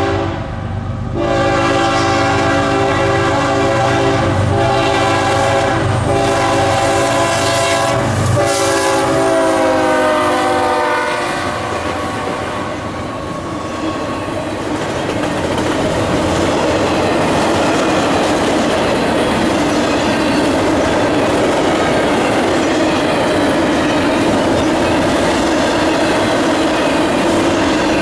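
Locomotive air horn sounding several long blasts, a chord of several tones that drops in pitch as it goes by, about ten seconds in. After the horn stops, the train's cars roll past with a steady rumble and clickety-clack of wheels on the rails.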